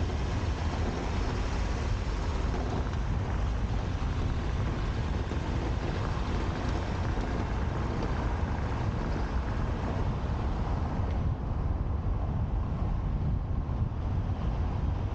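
Wind rushing over the microphone of a camera mounted on the roof of a moving car, over a steady low rumble of road and tyre noise.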